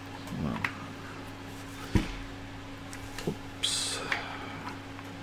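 Handling noise from fitting small ball bearings onto a 3D-printed plastic pulley body: one sharp knock about two seconds in, a few lighter clicks and taps, and a short scraping rustle near the end, over a steady low hum.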